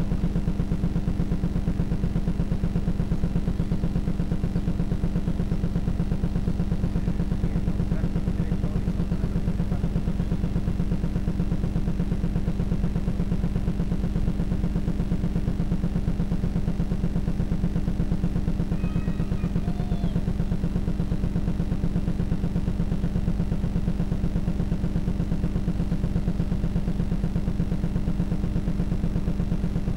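Steady low machine hum with a fast, even pulsing, unchanged throughout.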